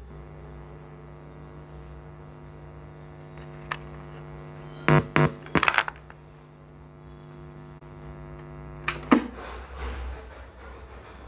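A boombox giving off a steady electrical hum with a buzzy, many-toned edge. A few sharp clicks come about five seconds in, and a louder click near nine seconds cuts the hum off.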